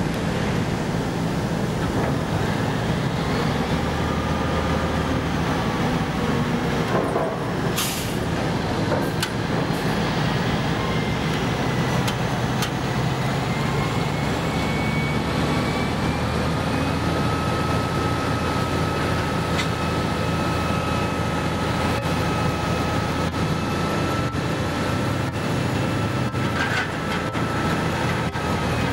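Heavy diesel engines of a log loader and a log truck running steadily while the loader's grapple lifts a full load of logs off the truck, with a whine that slowly rises and falls in pitch as the machine works. A short hiss of air sounds about 8 seconds in.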